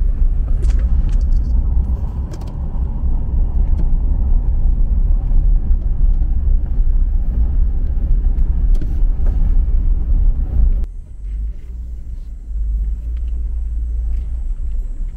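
Loud, steady low rumble of a car on the move, with road and wind noise heavy in the low end. About eleven seconds in it drops to a quieter rumble.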